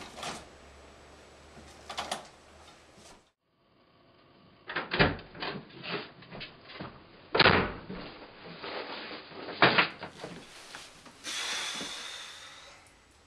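A wooden interior door being pushed shut, then a string of knocks and footsteps as a door opens and someone walks into a small room, followed near the end by a rustling hiss as he sits down on a bed.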